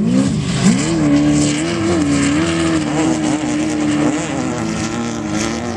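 Off-road race truck engine revving hard: the pitch climbs twice in the first second, then holds high and steady, easing down slightly near the end.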